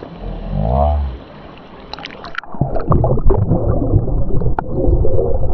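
Slowed-down slow-motion audio: a low sound that rises and falls once, then a brief splash as the camera goes under the creek's surface at about two seconds in. This is followed by loud, muffled underwater bubbling and gurgling with scattered clicks.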